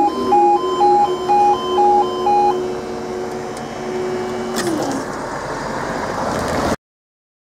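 Level crossing E2S alarm sounding a two-tone alternating beep about twice a second, stopping about two and a half seconds in. Under it the SPX half-barrier's drive hums steadily as the boom rises, winding down with a short falling tone near five seconds in. The sound then cuts off abruptly near the end.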